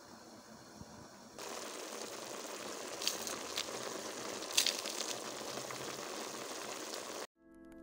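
Chunks of meat with lardons and onion sizzling in a pot, starting about a second and a half in, with a few sharp clicks. The sizzling cuts off suddenly near the end, and faint music begins.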